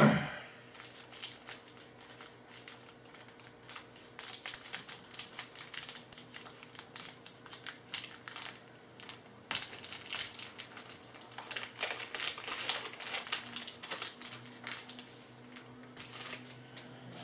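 Trading cards and their packaging being handled: a run of quick clicks, flicks and rustles as cards are slid and sorted, in two busier stretches.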